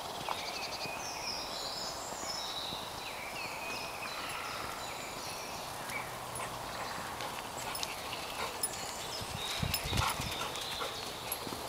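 Footsteps of a person walking on a muddy woodland path, with birds singing around. A few heavier thumps and clicks come near the end.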